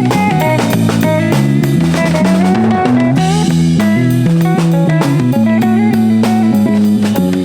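Rock band playing: guitar over a steady drum-kit beat and a moving bass line.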